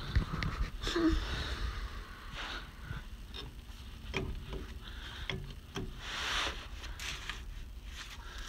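Scattered light clicks and taps of a hand tool and hardware on the steering stabilizer bracket bolts, with rustling and breathing from the person doing the work.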